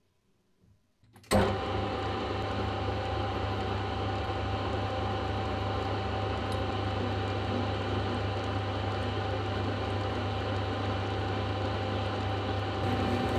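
Metal lathe switching on about a second in, then running steadily with a low hum and a constant whine while it turns the steel shaft. The noise grows slightly louder near the end.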